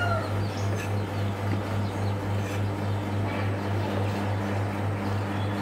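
A steady low machine hum pulsing about four times a second, with a few faint chops of a cleaver through pickled lemon on a wooden board.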